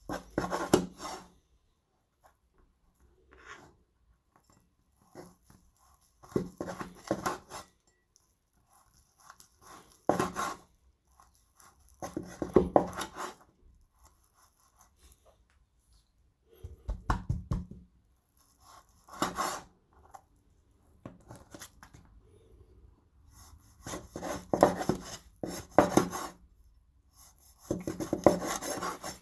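Knife slicing through beef tendon on a chopping board: about ten separate cutting strokes, each a short sawing, rubbing scrape with some knocks on the board, with quiet pauses between them.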